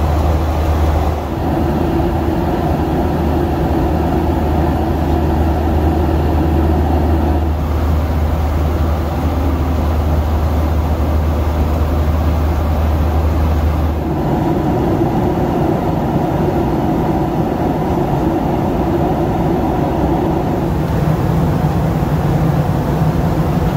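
Steady cabin noise inside a Boeing 737-800 airliner, with a strong low hum that drops away about fourteen seconds in, leaving a steady rush.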